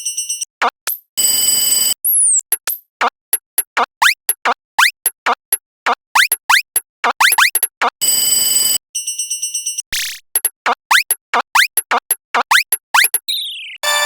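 Synthesized cartoon sound effects. A quick run of pulsed electronic beeps opens it, followed by a long string of short rising chirps. The chirps are broken twice by brief bursts of buzzing noise with a high tone, and falling tones come near the end.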